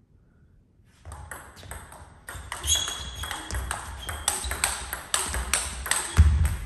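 Table tennis rally: the ball clicking off rackets and table in quick alternation. It starts about a second in and grows louder and busier, with a heavy low thump near the end.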